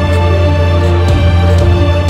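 Soundtrack music: sustained chords held over a deep, steady bass note.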